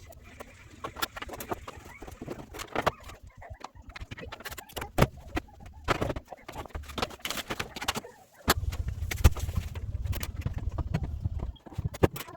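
Irregular clicks, knocks and rubbing of washer parts handled during reassembly, with a denser low rumble for a few seconds near the end.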